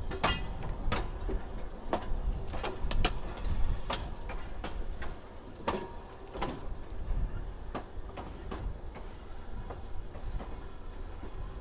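Work train rolling slowly over jointed track: a low rumble with irregular sharp clicks and clanks from the wheels passing rail joints. The clicks come thickest in the first half.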